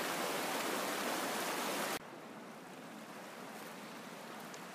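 Mountain river rushing over rocks in shallow rapids, a steady hiss of flowing water. About two seconds in it drops suddenly to a quieter, softer flow.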